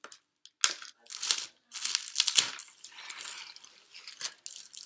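Clear plastic wrapping crinkling and rustling as fishing rods in plastic sleeves are pulled out of a cardboard shipping tube, in several irregular bursts, loudest in the first half.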